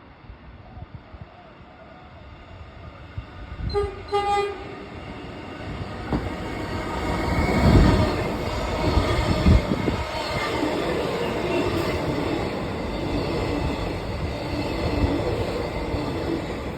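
Low-note horn of a Metro Trains Melbourne X'Trapolis electric train sounding two short toots about four seconds in. Then the train runs through the station at speed: the rumble of wheels on rails swells, is loudest around eight seconds in, and stays loud as the carriages go by.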